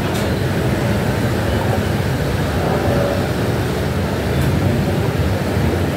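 Steady road traffic noise, a continuous low rumble of cars passing on the street below.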